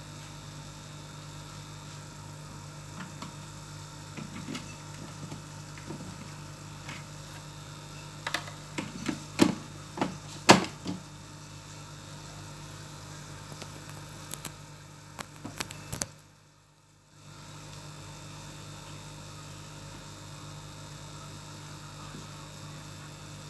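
Steady low hum of an aquarium air pump, with a scatter of short clicks and knocks in the middle, the loudest two about ten seconds in. The sound drops out for about a second about sixteen seconds in.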